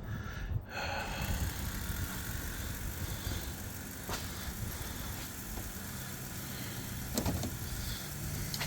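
Ford 6.0 Power Stroke V8 turbo-diesel on its first start attempt after a high-pressure oil pump replacement, turning over with a steady mechanical drone. From about six seconds in, a low hum rises in pitch in steps.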